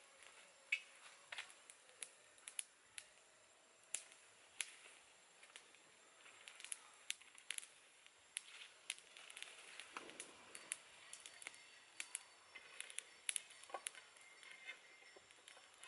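Small wood-twig fire crackling quietly, with scattered sharp pops and snaps, along with the light rustle and snap of leaves and twigs being handled beside it.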